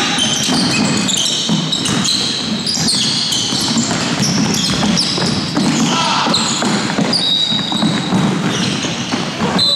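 Basketball game: many short, high sneaker squeaks on the wooden court, mixed with the thud of the ball bouncing and players' running feet.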